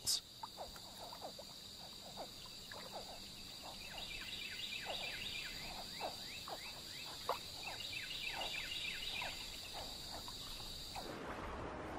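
Swamp chorus: a steady high insect trill with many short, downward-sliding frog calls over it. The trill cuts off near the end.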